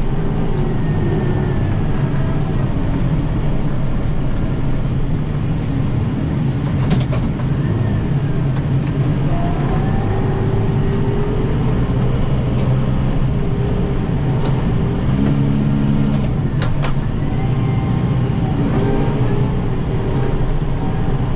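Kubota M7060 tractor's diesel engine running steadily while driving its PTO-driven 80-inch Pronovost snowblower, the engine pitch rising and falling now and then. A few sharp clicks or knocks sound over it.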